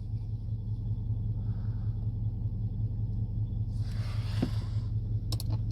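Steady low background rumble, with a brief rustle about four seconds in and a couple of sharp clicks near the end.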